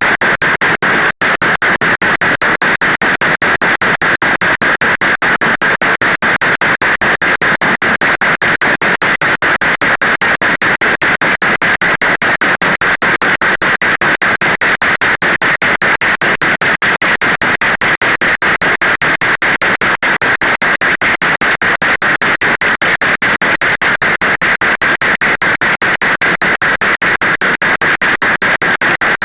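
Heavy rain: a loud, continuous hiss pulsing evenly several times a second, with one brief dropout about a second in.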